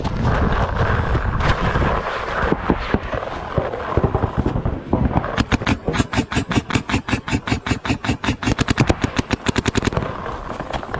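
Paintball marker, a Planet Eclipse CS3, firing a long rapid string of shots at about ten a second, from about five seconds in until near the end. Before that there is a low rumbling noise, then scattered single shots.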